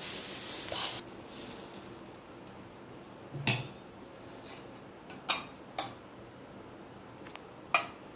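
Dosa batter hissing on a hot tawa as a steel ladle spreads it, cutting off sharply about a second in. Then four sharp clinks of steel utensils against cookware.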